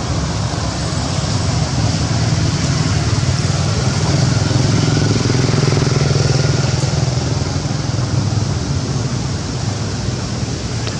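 Steady low engine drone, running evenly without revving.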